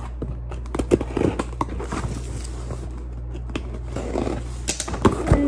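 A cardboard shipping box being cut open: a box cutter scraping and slicing along the packing tape, with scattered clicks and one sharp knock near the end.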